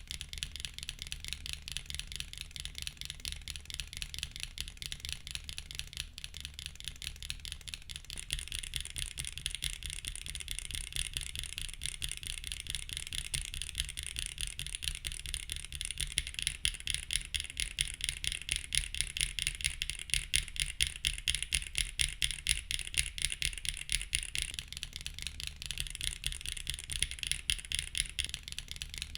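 Fast, continuous typing on a mechanical keyboard with Keygeek Y1X pre-lubed linear switches in an aluminium plate with no foam, under GMK keycaps: a steady run of sharp keystroke clacks. It grows a little louder from about eight seconds in.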